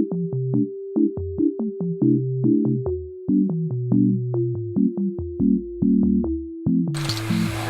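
Background music: a mellow electronic beat with a held synth note, short plucked keyboard notes over a moving bass line, and crisp drum-machine clicks. Near the end a steady hiss of outdoor noise comes in under it.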